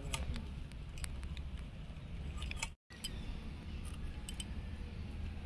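Scattered small clicks and scrapes of a live koi (climbing perch) being scaled and cut on a boti, the curved blade standing upright, with bangles clinking. The sound drops out for a moment a little under three seconds in.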